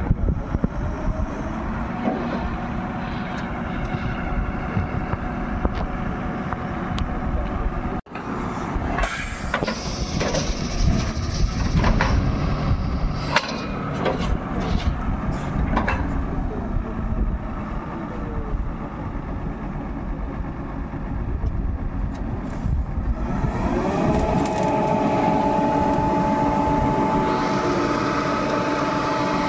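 Borewell drilling rig's engine running steadily, with several sharp metal clanks partway through as the steel casing pipes are handled. About three quarters of the way through, the engine speeds up and holds at a higher pitch.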